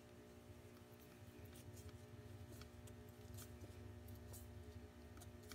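Faint, scattered clicks of a screwdriver working a hose clamp on a radiator hose, over a steady low hum.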